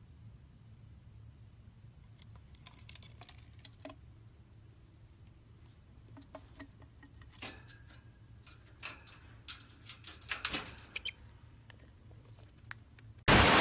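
Faint, scattered light scratching and tapping over a steady low hum, the ticks coming thicker in the second half, then a short loud burst of noise near the end.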